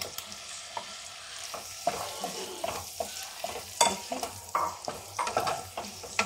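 Marinated boneless chicken pieces sizzling in hot butter in a nonstick wok, with a wooden spatula scraping and knocking against the pan as they are stirred. A sharp knock about four seconds in is the loudest.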